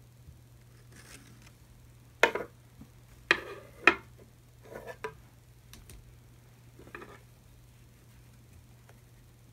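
A wooden embroidery hoop and fabric being handled on a desk: three sharp clacks a little over two seconds in, then softer knocks and rustles as the rings are worked.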